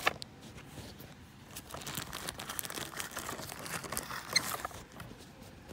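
Plastic packaging crinkling and crackling as it is cut open with a knife: irregular small clicks and rustles, with a sharp click at the very start.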